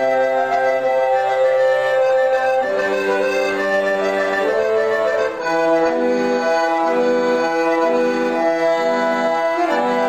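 Solo piano accordion playing the Circassian kafe dance tune: a melody over held chords, which settles into a steady pulsing bass-and-chord accompaniment about six seconds in.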